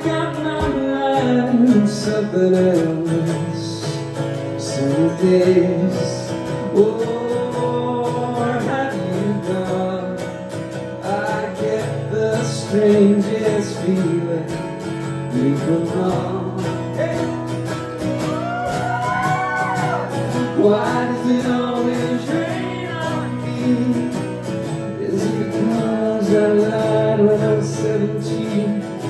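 Live acoustic pop-rock song: two acoustic guitars strummed, with a male voice singing the melody.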